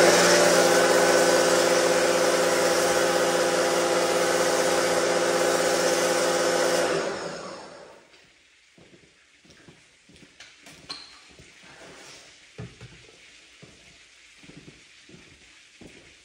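Electric pressure washer motor and pump running with a steady hum, shutting off about seven seconds in and winding down over a second. Faint dripping and light ticks of water follow.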